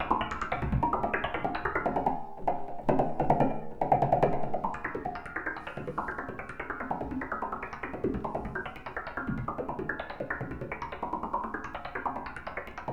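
Make Noise Shared System modular synthesizer playing a fast, even, repeating pattern of short pitched percussive hits, like wood-block clicks.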